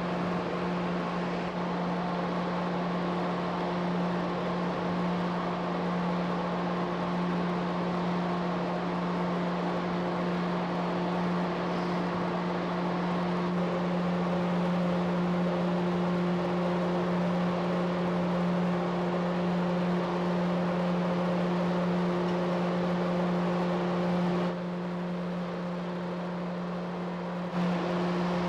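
Steady drone of a large ferry's machinery heard from the open deck while berthing: a constant low hum over a broad rushing noise. It drops in level for a few seconds near the end.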